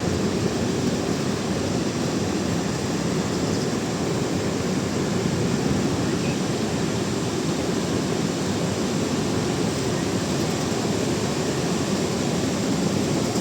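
Steady rush of the Ban Gioc waterfall's falling water, an even, unbroken noise heaviest in the low range.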